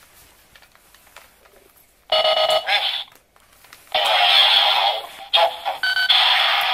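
Electronic sound effects from a Chalice Arrow toy bow's small built-in speaker. About two seconds in a short pitched chime plays, then from about four seconds a loud, harsh electronic effect runs with brief breaks. A few faint handling clicks come before it.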